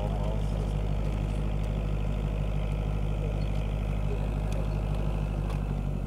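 Tractor engine running steadily at an even speed.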